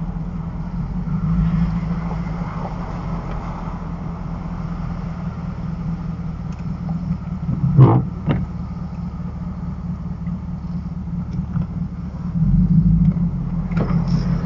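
Car engine idling, a steady low hum heard from inside the vehicle. A brief loud sound cuts in about eight seconds in, and the hum swells louder for about a second near the end.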